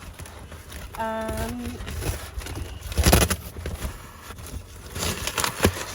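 Hands struggling to tear open a parcel's packaging: rustling and scraping, with one loud sharp rip about three seconds in. A brief hummed voice sound about a second in.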